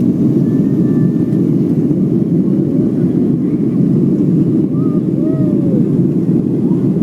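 Steady roar of a Boeing 757-200's jet engines and rushing air, heard inside the passenger cabin from a window seat in flight after takeoff.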